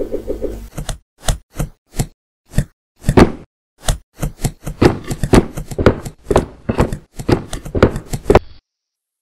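Cartoon sound effects of cardboard boxes being set down and stacked: a series of short whacks and thuds, spaced out at first and then coming rapidly in the second half, stopping abruptly near the end.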